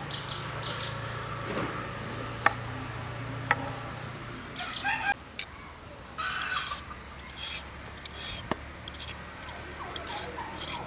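A knife cutting broccoli florets on a wooden cutting board with a few sharp taps, then a vegetable peeler scraping strips off a carrot in repeated rasping strokes, about one a second.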